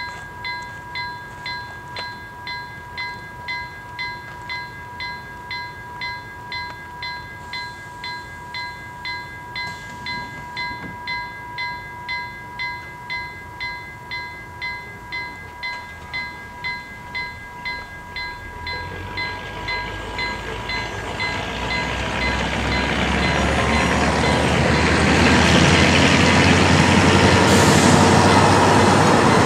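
Level crossing warning bell ringing steadily, about one and a half strokes a second. About two-thirds of the way in, the noise of an approaching Dm7 diesel railbus rises and grows loud as it runs over the crossing near the end, swamping the bell.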